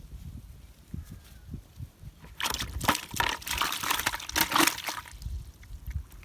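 Water splashing and sloshing for about two and a half seconds, starting about two seconds in, among low knocks.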